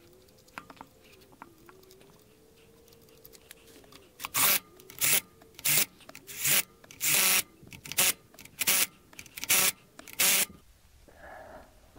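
Cordless driver with a socket spinning lug nuts onto a trailer wheel in about nine short trigger bursts, starting about four seconds in. Before that, faint clicks of the nuts being threaded on by hand.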